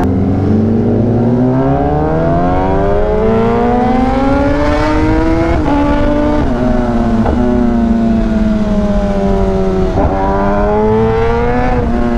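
A superbike's inline-four engine under way, revs climbing for about five seconds, then dropping sharply twice in quick upshifts around six and seven seconds in. The revs ease down as the bike rolls off, then pick up again near the end, over steady wind noise on the microphone.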